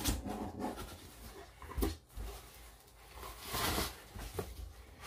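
Cardboard shipping box and its paper contents being handled by hand: flaps and paper rustling, with a couple of light knocks and a longer rustle of paper about three and a half seconds in.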